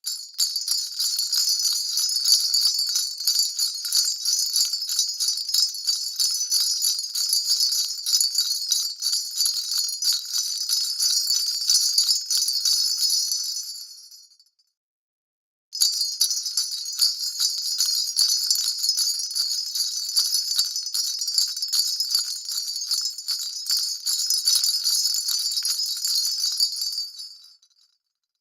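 2.25-inch round sleigh bells (jingle bells) shaken continuously in two long runs. Each run jingles for about twelve to fourteen seconds and then dies away, with a short silence between them about halfway through.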